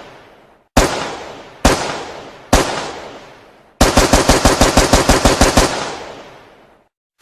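AK-47 rifle firing three single shots about a second apart, each followed by a long echoing tail. It then fires a fully automatic burst of about two seconds at roughly nine rounds a second, which also echoes away.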